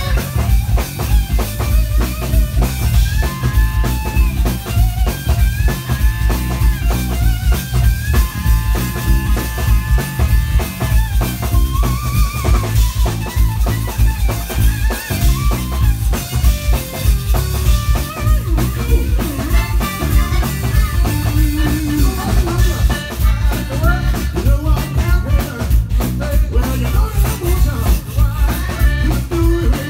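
Live zydeco band playing: accordion, rubboard, electric guitar, bass guitar and drum kit, with a heavy bass line and a steady beat.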